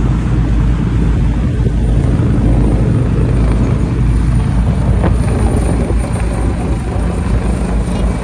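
Steady low rumble of a passenger ferry's engines under way, with wind buffeting the microphone on the open deck. A helicopter flying low overhead joins in toward the end.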